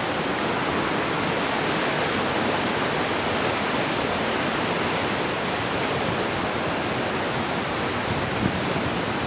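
Steady rush of the Iguazú Falls waterfalls: a dense, even hiss of falling water with no breaks.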